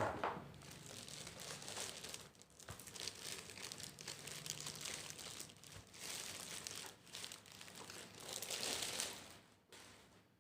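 Packaging wrapper around a YouTube Silver Play Button plaque crinkling and rustling in irregular bursts as it is handled and unwrapped.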